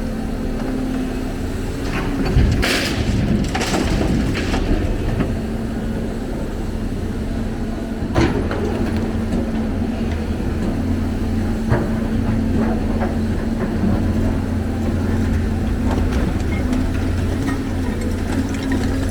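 Heavy diesel engine of construction machinery running steadily, with a stretch of loud rushing and crashing noise about three seconds in and a couple of sharp knocks later on.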